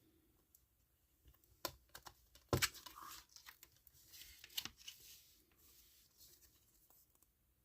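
Blu-ray case and its plastic packaging being handled: a few sharp clicks with short bursts of crinkling and tearing.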